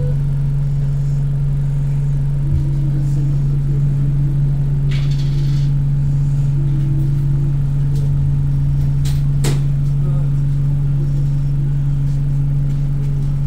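Bus engine running with a steady low hum, heard from inside the passenger cabin. A short hiss comes about five seconds in and a sharp click about nine seconds in.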